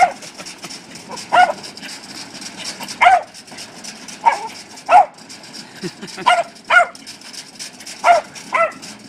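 A small dog barking in short, high yaps, about nine of them, roughly one a second, some coming in quick pairs.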